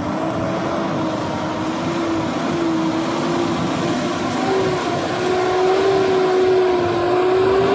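Mitsubishi Triton pickup, loaded with cargo, climbing a slippery mud slope: its engine runs hard under load with a steady whine that rises a little about halfway through.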